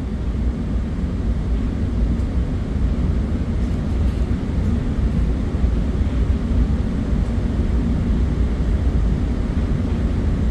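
Steady low rumble of running machinery, even in level throughout, with no beeps or clicks.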